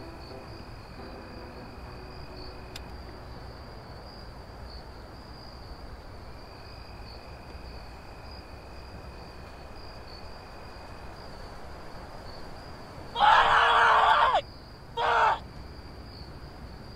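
Quiet night ambience with a faint, steady high-pitched whine like insects. About thirteen seconds in, a loud voice cries out for about a second, then again briefly about two seconds later.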